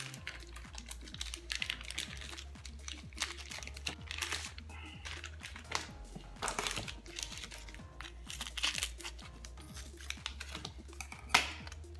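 Plastic vacuum packaging crinkling and rustling as it is handled and pulled open, with irregular small clicks and a single sharp snip-like crack near the end as scissors cut the wrapper. Background music with a steady low bass underneath.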